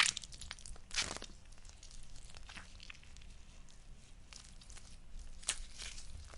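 Blood-and-guts gore sound effect: irregular tearing and crunching noises, strongest at the start and about a second in, with smaller crackles between and another sharp one near the end.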